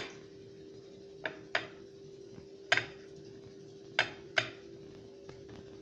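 About six sharp knocks and clicks of a china plate against a stone counter as a fish is pressed and turned in flour on it, over a steady faint hum.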